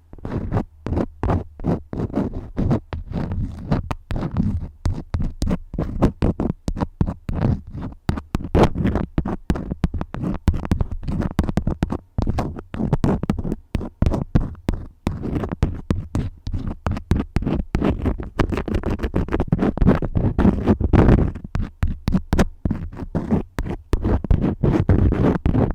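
Crayons scratching and rubbing in quick, repeated strokes, picked up close to the microphone.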